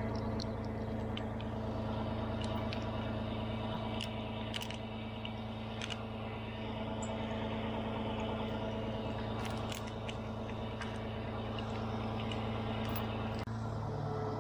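Large diesel engine, most likely the crane's, running steadily at a constant speed, with a few faint clicks over it. Its pitch shifts slightly near the end.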